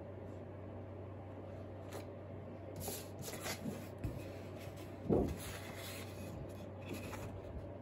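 Sheets of drawing paper rustling and sliding as one drawing is set down and another picked up, with a thump about five seconds in, over a steady low hum.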